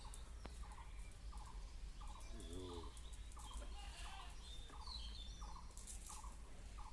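A bird repeating a short call note about twice a second, with fainter high chirps from other birds.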